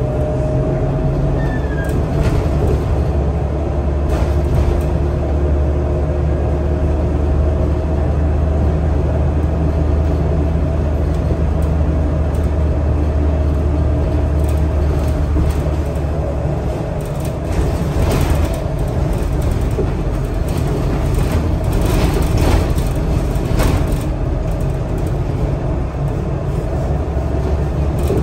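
Scania L94UB city bus heard from inside the passenger cabin, its engine running with a steady low drone. The engine note changes about two-thirds of the way through, and the body rattles and clicks several times after that.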